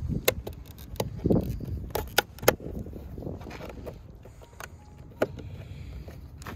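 Plastic pry tool levering at a Hyundai Veloster N's OEM side-mirror cover: a series of sharp plastic clicks and snaps, the loudest about two and a half seconds in, as the cover's fragile retaining tabs are pried at.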